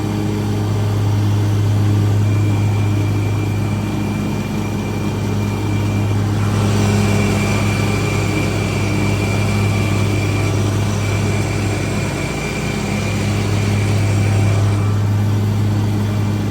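Lawn mower engine running at a steady speed, a constant low drone with a thin high whine over it; from about six and a half to fifteen seconds in, a brighter hiss joins it as it cuts.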